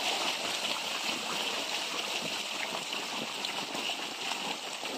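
Steady stream of water poured from a plastic bucket onto mud-covered fish in a woven bamboo basket, splashing over the fish and mud.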